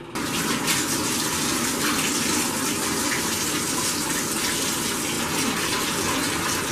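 Bathtub faucet running full, water gushing steadily into the tub to fill it for a dog's bath. It starts suddenly and keeps an even, heavy rush.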